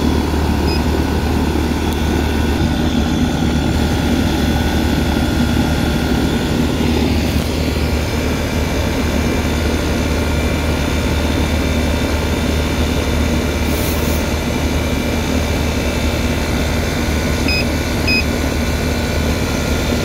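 Ruud air-conditioner condenser running normally, its compressor and condenser fan giving a steady hum.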